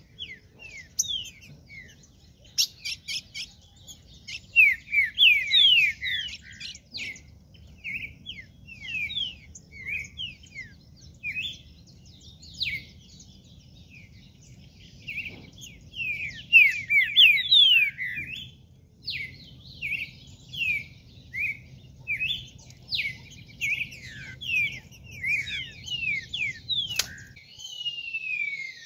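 Green-winged saltator (trinca-ferro) song: phrase after phrase of quick, descending whistled notes, with a single sharp click about two seconds before the end.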